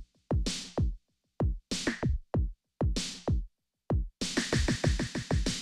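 Electronic intro music: a drum machine beat of deep kicks and snare hits with short silences between them, turning busier about four seconds in, with quicker kicks and a steady cymbal hiss.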